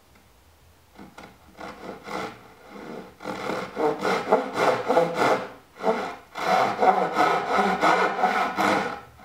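Hand saw cutting through a wooden board in quick back-and-forth strokes, starting about a second in, with a short break a little past the middle.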